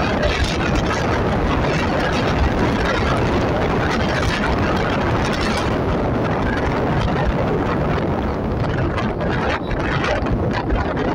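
Wind buffeting the microphone of a moving vehicle travelling along a paved road: a loud, steady rush, with engine and tyre noise underneath.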